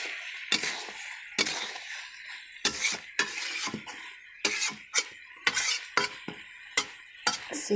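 Metal spatula stirring mutton kasha in a kadai, a run of irregular clinks and scrapes against the pan over a faint sizzle, as the simmering meat is checked for doneness.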